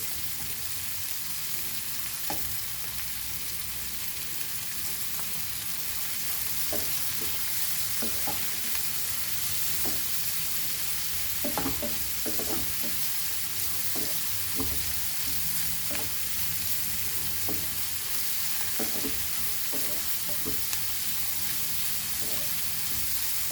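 Chopped onions frying in hot oil in a pan, a steady sizzle, while they are sautéed until they change colour. A spoon or spatula stirs and scrapes the pan now and then, making short irregular clicks.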